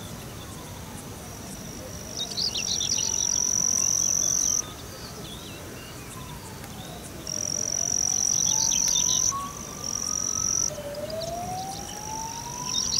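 An insect's high, steady buzz comes in stretches of two to three seconds with short breaks, and is the loudest sound. Under it a siren wails faintly, slowly rising and falling.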